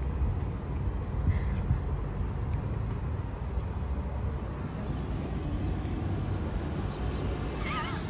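Engine idling steadily: a continuous low rumble.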